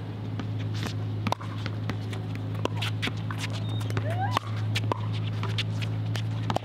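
Pickleball rally: paddles striking the plastic ball and the ball bouncing on the hard court, a string of short, sharp pops at irregular intervals, with players' shoes moving on the court, over a steady low hum.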